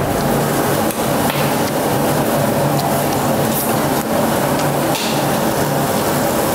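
Samgyeopsal pork belly sizzling on a tabletop grill, with a few knocks and clinks of utensils.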